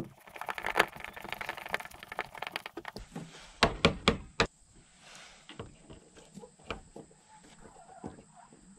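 Hand screwdriver driving screws through a door track into wooden coop boards: a run of rapid clicks for about three seconds, then a few sharper clicks, then fainter ticks.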